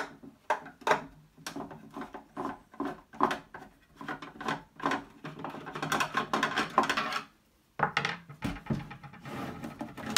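Long Torx screwdriver working a screw out of the handle recess of a Macintosh Plus's plastic case: irregular clicks and scraping of the driver against the screw and plastic. A few heavier knocks come in the last couple of seconds.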